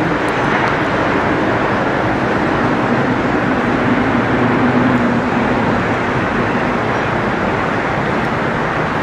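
Steady roar of downtown city traffic heard from high above the streets, with a low engine-like hum standing out for a few seconds in the middle.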